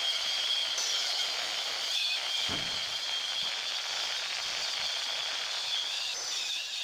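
An angle grinder cutting through a steel axle housing tube, giving a steady high-pitched screech. There is a brief low thump about two and a half seconds in.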